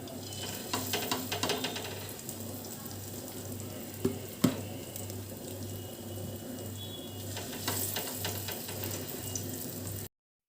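Elephant foot yam fritters shallow-frying in oil in a frying pan on low heat, a steady sizzle with scattered crackles and a sharp knock about four and a half seconds in. A low, evenly pulsing hum runs beneath it. The sound cuts off just before the end.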